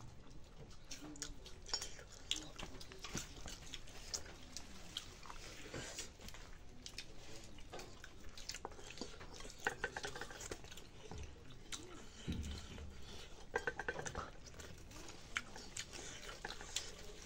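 Faint eating sounds: a person chewing and eating rice and chicken curry by hand from a steel plate, with scattered small clicks and clinks of fingers against the plate.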